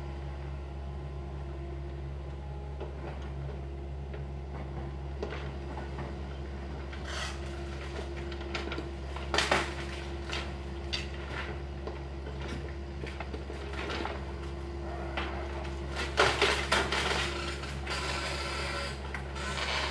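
Excavator's diesel engine running steadily while wooden demolition debris is broken up and handled: clattering crashes of wood and debris, one loud burst about nine seconds in and a cluster of them around sixteen to seventeen seconds in, with lighter knocks between.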